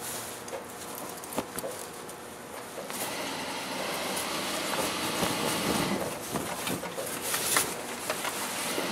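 Rustling and swishing of a large piece of white shroud cloth being lifted, turned and folded by hand, with a few small knocks; it grows fuller from about three seconds in.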